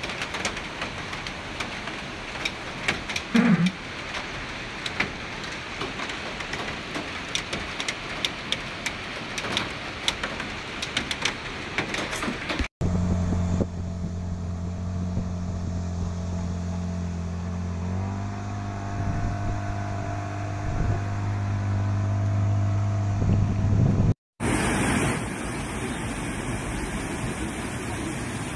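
A steady rushing noise with many crackles over a swollen brown river. Then an engine runs steadily as a craft moves through floodwater, its pitch stepping up partway through. Last comes floodwater rushing over a low weir.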